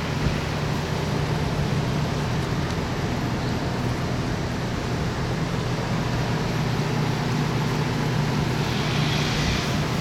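Strong wind blowing, a steady rushing noise with a deep rumble of wind on the microphone, and a brighter hiss near the end.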